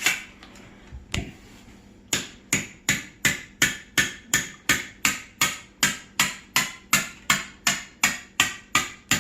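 A hammer striking an aluminum rod about three times a second, driving a lead slug down a 7mm Mauser rifle barrel to slug the bore. One or two single knocks come first, then the steady tapping starts about two seconds in.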